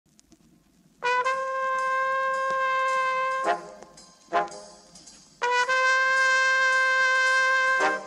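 Late-1950s jazz film-score recording opening on a solo brass horn. After a second of quiet it plays a long held note, then two short notes, then a second long held note.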